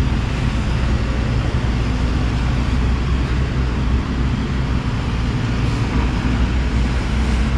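Heavy diesel earthmoving machinery, an excavator working in river dredging, running steadily with a low engine rumble and a faint engine hum.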